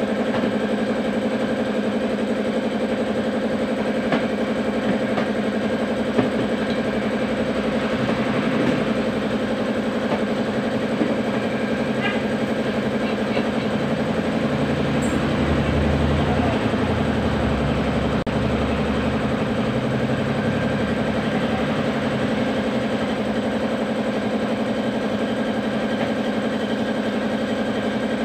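A steady machine hum, running without a break, with a deeper rumble swelling for a few seconds about halfway through and a few light metallic clinks of hand tools on engine parts.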